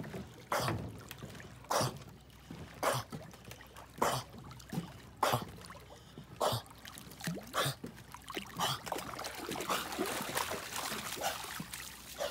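A bull terrier dog-paddling through lake water: rhythmic splashes about once a second from its strokes, then a longer stretch of continuous splashing and dripping near the end as it climbs out onto the bank.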